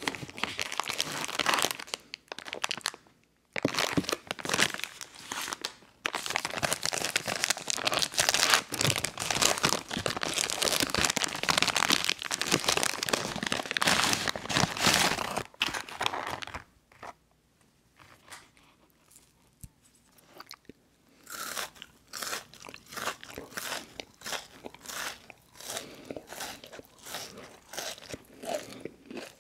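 Plastic wrapper of a king-size Cinnamon Toast Crunch cereal treat bar crinkling as it is handled and opened for about the first sixteen seconds. After a short lull, close-up crunchy biting and chewing of the crispy bar in a steady rhythm.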